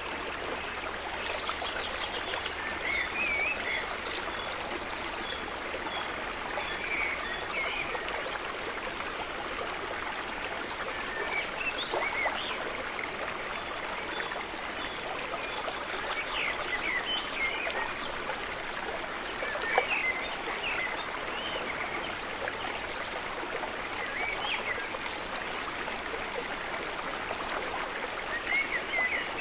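Running water of a stream flowing steadily, with short high chirps scattered over it and one brief sharp tap about twenty seconds in.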